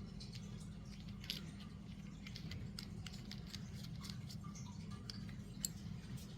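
Faint, irregular small clicks and ticks from handling a new Daiwa Caldia spinning reel and its handle, over a steady low hum.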